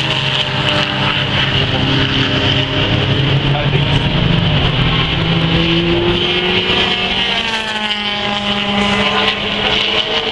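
Classic race car engines running hard as the cars lap the track. Among them are a V8 Ford Boss Mustang and a Holden Torana XU-1's 202 straight-six. One engine note climbs in pitch from about six seconds in.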